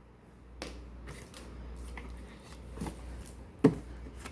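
Rustling and crinkling of packaging as parts of a spin dryer are taken out of their box, with a few light clicks and one sharper knock about three and a half seconds in.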